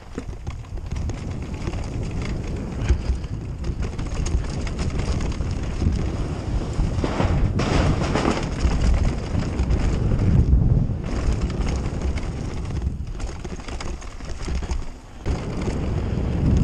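Haibike AllMtn 3 electric mountain bike running fast downhill on a dirt trail, its tyres rumbling and rattling over the ground, with steady wind buffeting the camera microphone. It gets louder and rougher around the middle.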